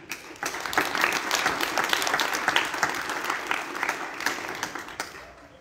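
Assembly audience applauding: many hands clapping at once, starting just after the beginning and dying away near the end.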